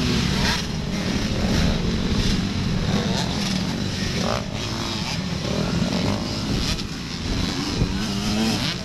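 Motocross dirt bike engines running and revving on the track, a continuous drone whose pitch wavers and rises briefly near the end.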